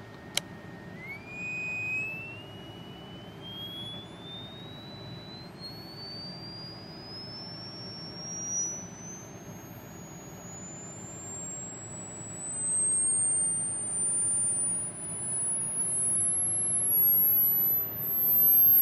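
Piezo disc element sounding a pure whistle as it is driven by a function generator's sine wave. The tone holds steady for about a second, then climbs in small steps to a very high whine as the drive frequency is turned up, growing louder in the last third. A single click comes about half a second in.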